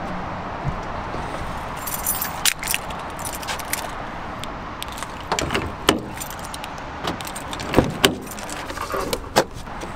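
A bunch of keys jingling in hand, in scattered clinks over a steady outdoor background hiss.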